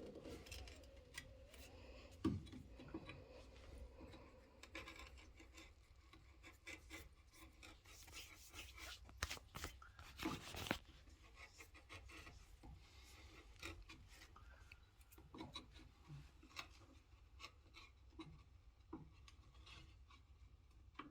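Faint scraping and paring of wood with a hand chisel, cutting the latch mortise in a door edge, with scattered light taps and a few louder scraping strokes about halfway through.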